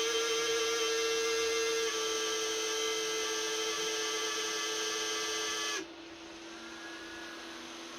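Cooling fans of an Ender 3 V3 SE 3D printer running at start-up with a steady high-pitched whine. About six seconds in, the loudest, shrillest fan cuts out suddenly, leaving a quieter, lower steady fan hum.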